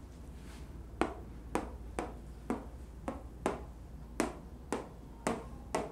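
A marker tapping on a whiteboard: about ten short, sharp taps, evenly spaced at about two a second, starting about a second in.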